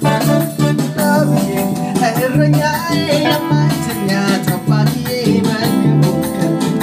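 Live worship band playing an Ethiopian gospel song (mezmur): electric guitar and electronic keyboard over a steady beat, with voices singing the melody.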